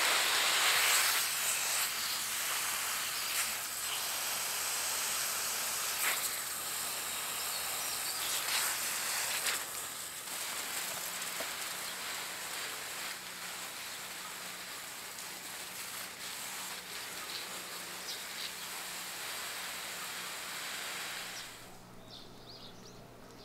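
Water spraying from a garden hose watering wand onto plant leaves, a steady hiss of spray and patter that stops about 21 seconds in. Faint bird chirps follow near the end.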